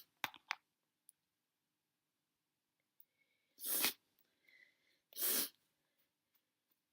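A person sneezing in a hay-fever sneezing fit: two quick, sharp sneezes right at the start, then two loud sneezes about four and five and a half seconds in, each after a short breathy catch.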